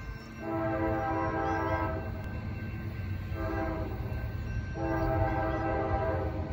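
Air horn of an approaching CSX freight locomotive sounding a steady multi-note chord in three blasts: long, short, then long again. This is the tail of the standard long-long-short-long grade-crossing signal.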